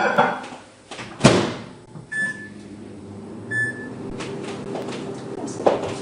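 A couple of sharp knocks, like a door or cupboard being shut, then two short electronic beeps about a second and a half apart. After the first beep a household appliance starts running with a steady hum.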